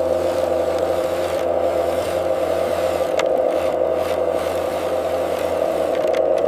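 Mini excavator's engine running steadily, with a faint click about three seconds in.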